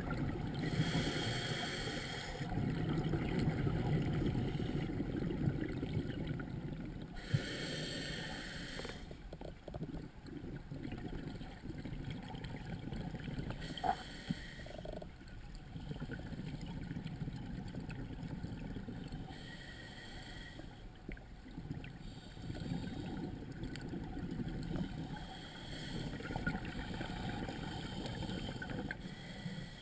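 Scuba diver breathing through a regulator underwater: a short hiss on each inhale, then a longer low rush of exhaled bubbles, repeating about four times.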